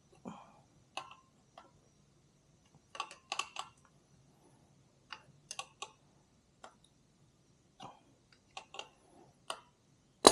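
Sparse, irregular light metallic clicks and ticks from hand tools working the spring-loaded clutch nut and pressure plate, with small clusters about three seconds in and again near five and a half seconds.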